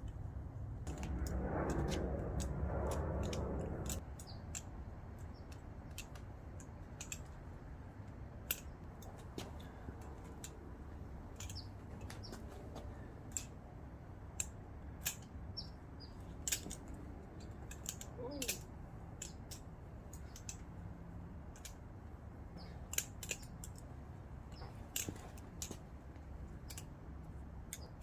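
A balisong (butterfly knife) being flipped: irregular sharp metal clicks and clacks as the handles swing and strike each other and the blade, sometimes several in quick succession.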